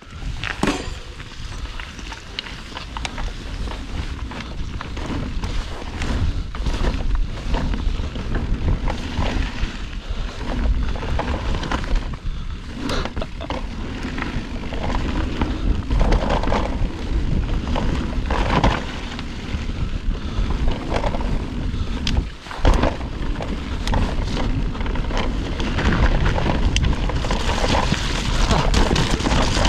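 Mountain bike riding down a dirt trail: heavy wind noise rumbling on the microphone, tyres on the dirt, and frequent knocks and rattles from the bike over bumps.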